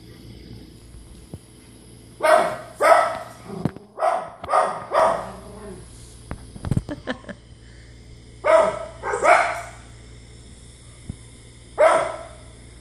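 Small dog barking at a dog on a TV screen: sharp barks in short runs of two or three, with pauses of a few seconds between the runs.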